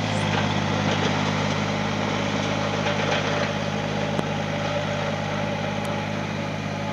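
Kobelco SK28SR-6 mini excavator's diesel engine idling steadily.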